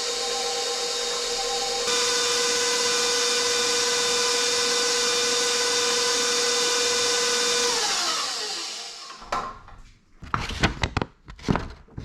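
Electric mixer running steadily, beating eggs and vanilla into creamed sugar and shortening; its whine steps up slightly about two seconds in, then it is switched off and winds down with a falling pitch. Several sharp knocks and clatters follow near the end.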